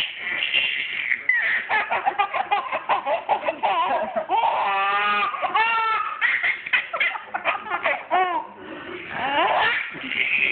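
Baby laughing hard in long runs of quick bursts, with a short lull about eight seconds in.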